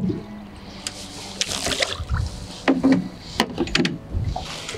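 Water splashing with scattered knocks and clicks as a small perch is brought in by hand, without a landing net.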